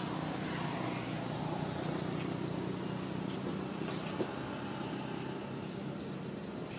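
A steady low engine hum, unchanging throughout, with one short tick about four seconds in.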